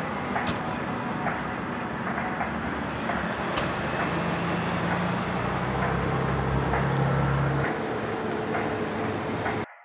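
Steady traffic noise with a car engine running nearby; its low hum is strongest from about four seconds in and drops away shortly before the sound cuts off suddenly near the end.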